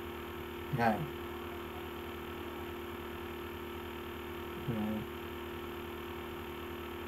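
A steady electrical hum, with a man's voice making two short sounds over it, about a second in and near five seconds.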